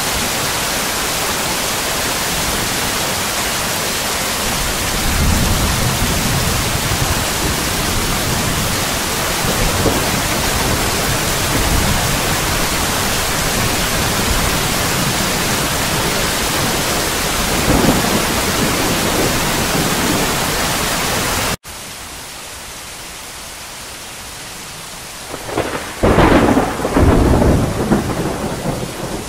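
Steady heavy rain with low rolls of distant thunder. About two-thirds of the way through, the sound cuts abruptly to quieter rain, and a loud rolling peal of thunder follows near the end.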